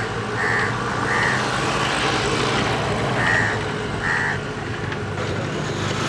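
Road traffic noise with vehicle engines running steadily and four short, high-pitched beeps spread through it.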